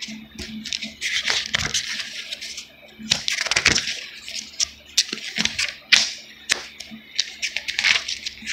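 Thin pages of a thick Compact Bible Dictionary being leafed through: a run of crisp paper rustles and flicks in uneven spurts as the pages are turned.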